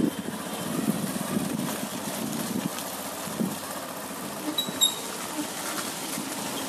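A motor vehicle engine running steadily under a noisy background. Two short high beeps come about three-quarters of the way through.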